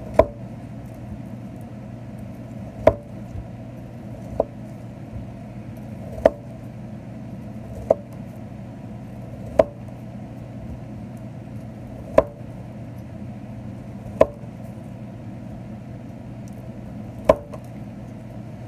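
Chef's knife slicing straight down through a chilled puff-pastry palmier log, each cut ending in a sharp knock of the blade on the parchment-covered stone countertop: about nine cuts, one every couple of seconds. A steady low hum runs underneath.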